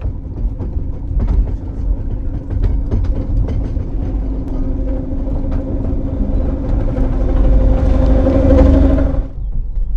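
1924 vintage electric rack-railway train climbing toward the listener: a steady hum from its drive over a low rumble, with clicks from the wheels on the rails. It grows louder as it approaches, then cuts off suddenly near the end.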